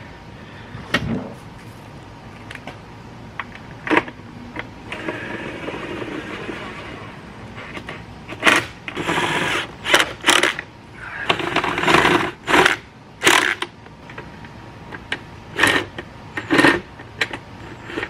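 Cordless drill/driver whirring in short bursts as it drives screws into an outboard motor's lower cowling, with clicks and knocks between the bursts.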